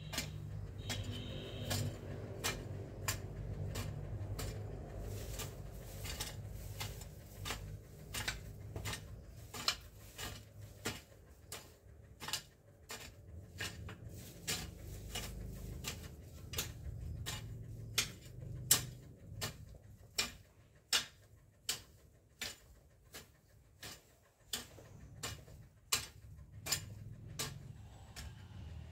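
A long-handled hand tool chopping repeatedly at weeds and soil, giving sharp clicking strikes about two a second at an uneven pace.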